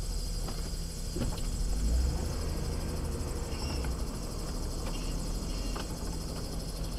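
Plow truck's engine running, a steady low rumble heard from inside the cab that swells briefly about two seconds in.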